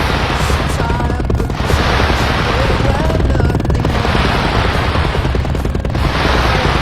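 Fireworks going off in a dense, rapid barrage of crackling bangs, like a fusillade, over music.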